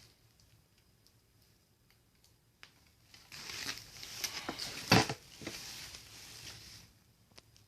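Packaging being handled, a stretch of rustling and crinkling with a sharp knock about five seconds in.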